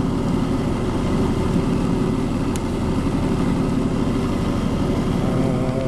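Ammco 7000 disc brake lathe running steadily, its electric motor and spindle turning without rattling. A brief click about two and a half seconds in.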